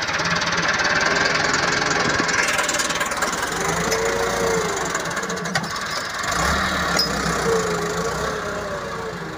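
Millat Massey Ferguson 385 tractor's diesel engine running steadily under load as it drags a tine cultivator through wet soil, its note wavering briefly a couple of times.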